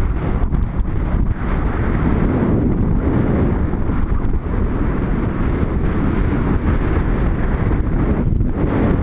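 Loud, steady wind rumble buffeting the microphone of an action camera worn by a skier gliding down a groomed run.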